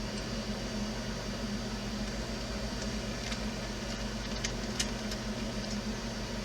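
Steady low background hum with a few faint light clicks of small parts and tools being handled about three to five seconds in.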